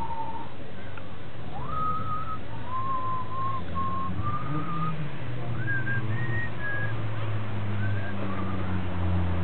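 A slow tune of long held high notes, pure in tone, stepping up and down in pitch, over a low steady hum.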